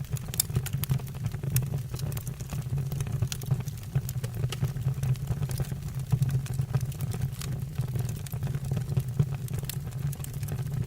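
Wood fire burning in a fireplace: a steady low rumble of flames with frequent irregular crackles and pops from the burning logs.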